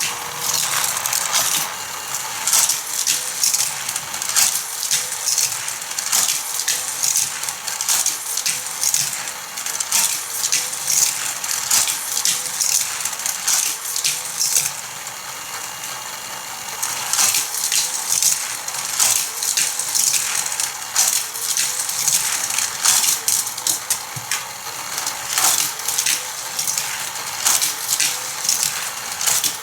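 Die-cast toy cars clattering around a plastic Hot Wheels Tech Trax layout, launched by a battery-powered motorized booster: continual rattling and clicking of wheels on track joints and rails, with a faint whine that rises again every couple of seconds and brief lulls between runs.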